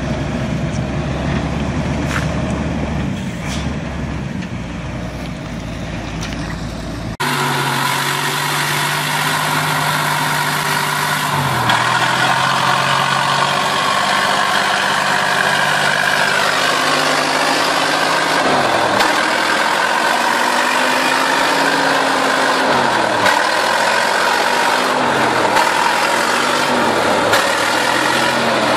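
Heavy logging truck engines working under load. First a loaded log truck's engine pulls steadily uphill. After a sudden change about seven seconds in, an off-road truck's engine is revved up and down again and again as it crawls through mud with a load of logs.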